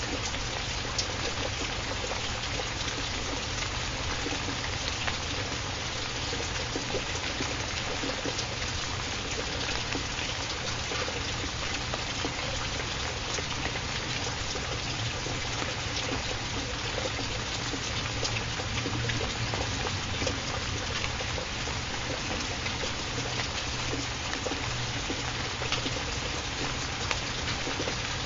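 Steady recorded water ambience of rain and trickling water: an even hiss with scattered faint drop-like ticks, the masking track of a subliminal audio.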